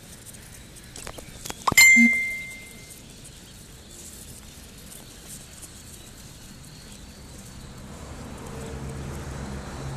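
A few light knocks, then a sharp metallic clink about two seconds in that rings briefly with one clear tone and fades. A low hum slowly builds toward the end.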